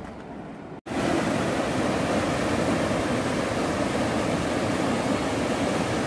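Swollen river rapids of a flooded waterfall rushing loudly and steadily as churning water. The sound starts abruptly just under a second in, after a quieter stretch.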